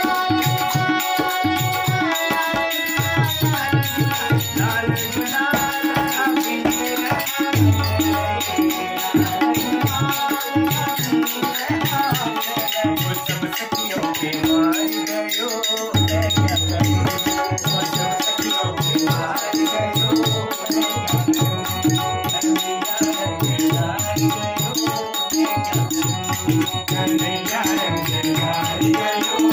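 Kumauni baithak holi song: a man singing to harmonium, with tabla strokes and a small hand-held percussion instrument keeping a steady rhythm.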